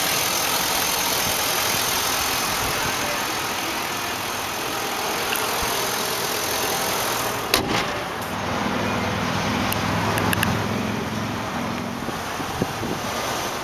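Chevrolet Vortec 5.3-litre V8 idling steadily, heard from the engine bay. A single sharp knock a little past halfway, after which the sound is duller and the low engine hum stands out more.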